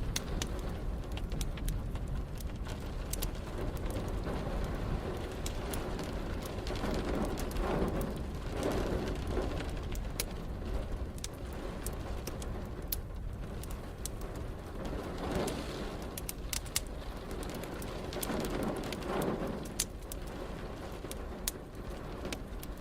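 Wood fire crackling with sharp, scattered pops over a steady bed of rain. Three brief swells of deeper sound come and go partway through.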